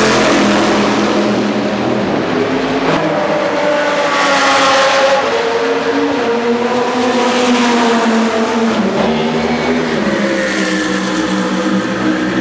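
GT race cars passing at speed one after another. Their engines are at high revs, and the note swells and shifts in pitch as each car goes by.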